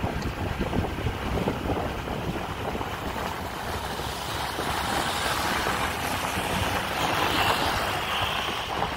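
Wind rushing over the phone's microphone on a moving motor scooter, with the scooter's engine and road noise underneath. The rush grows stronger from about four seconds in.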